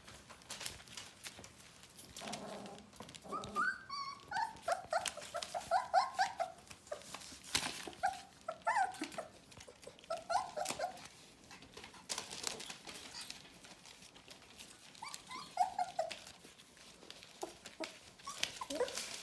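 Border collie puppies about four weeks old whimpering in short, high, scattered calls, with frequent rustling and clicking as they scramble about on newspaper.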